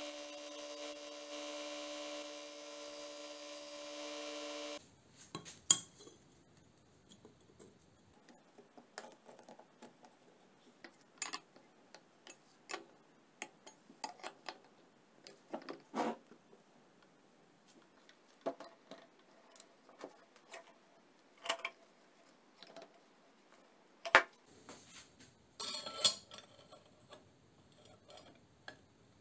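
An electric belt grinder runs with a small metal plate held against the belt, a steady motor sound with a hiss of grinding, then cuts off suddenly about five seconds in. After it, scattered metallic clicks and clinks of hand-work: a wrench on a bolt and metal parts being handled and set down.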